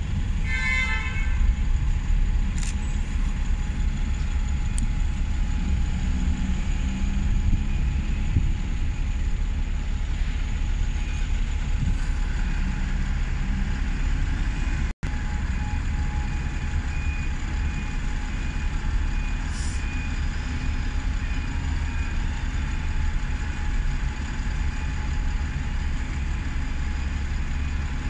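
Bus station ambience: a steady low rumble of diesel bus engines and traffic, with a short high tone about a second in and a couple of brief hisses later on.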